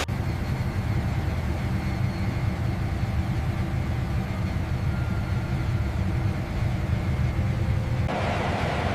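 Steady low mechanical rumble that cuts off abruptly about eight seconds in, giving way to a broader hiss.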